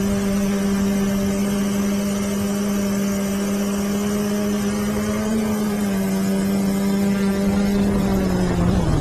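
Quadcopter's electric motors and propellers whining at a steady pitch, heard from the craft's own onboard camera. The pitch wavers slightly midway, then begins to fall near the end as the copter comes down to land.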